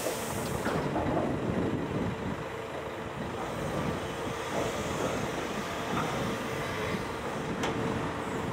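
Heavy diesel engines running steadily: a Hitachi excavator working its bucket and a Scania V8 tipper truck idling alongside, with an even hum and a few light knocks.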